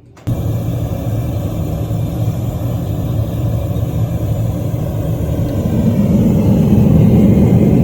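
A loud, steady, low rumbling noise with no clear pitch that starts suddenly, grows louder near the end, then cuts off abruptly.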